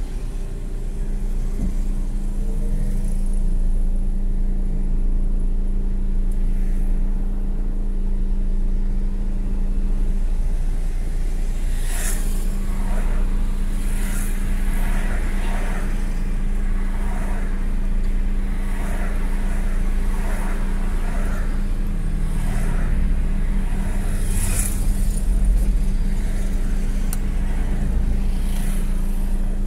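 Car engine idling steadily, heard inside the cabin as a low rumble with a steady hum. From about twelve seconds in, a few faint clicks and wavering sounds come over it.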